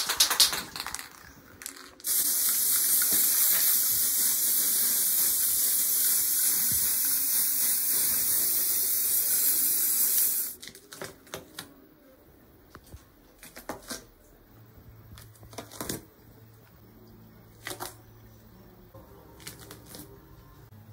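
Aerosol spray-paint can spraying: one long steady hiss of about eight seconds that starts about two seconds in and cuts off suddenly. It is preceded by a short spell of rapid clicking and followed by scattered light taps and clicks.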